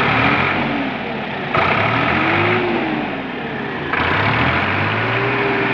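Sonalika 745 tractor's diesel engine being revved, its pitch rising and falling. A harsher, higher-pitched layer cuts in abruptly about a second and a half in and again about four seconds in.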